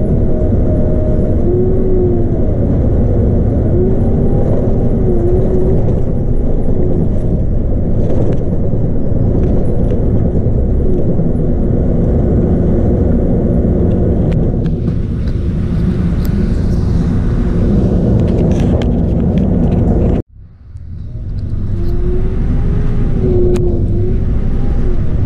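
Inside a 2008 Scania K310UB bus on the move: its 8.9-litre five-cylinder DC9 diesel and ZF Ecomat six-speed automatic running, with a whine rising and falling in pitch over the engine. About twenty seconds in, the sound cuts out abruptly and swells back over about a second.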